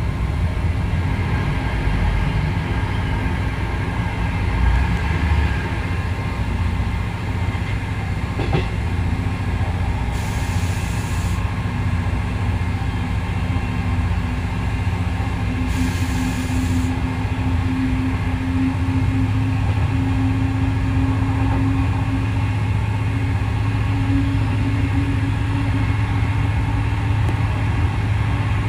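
Passenger train running at speed, heard from inside its rear cab: a steady rumble of wheels on rail, with a low hum that grows louder and rises a little midway.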